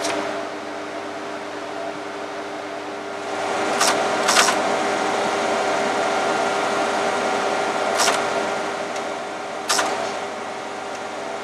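Steady hum of the PDP-12 computer's cooling fans. From about three seconds in, a louder mechanical whirr joins it for several seconds, with four sharp clacks from the printing terminal's keyboard and mechanism.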